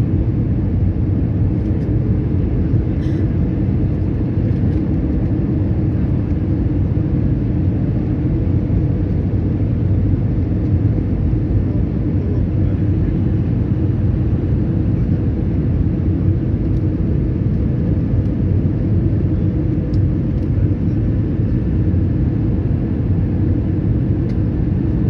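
Airliner cabin noise in flight: a steady low rumble of engines and rushing air, with a faint steady hum above it.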